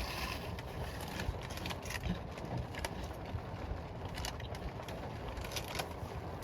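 Rain falling on a car, with irregular sharp drop ticks over a steady low rumble.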